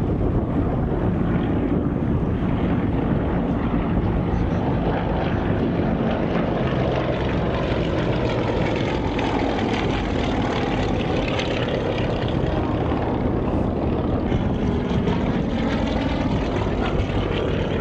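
Propeller-driven aircraft engine droning steadily overhead, its pitch sliding a little as it passes.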